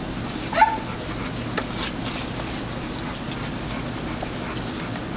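Two dogs play-wrestling: one gives a short high yelp about half a second in, followed by scattered clicks and scuffles of paws on the tile floor.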